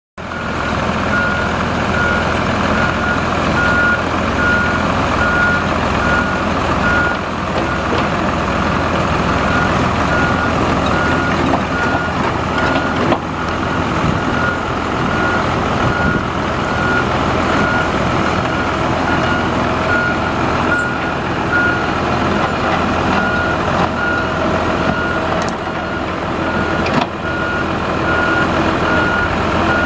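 Komatsu PC78MR-6 mini excavator's four-cylinder turbo diesel engine running steadily, with its travel alarm beeping in a regular, even rhythm: a sign the machine is tracking.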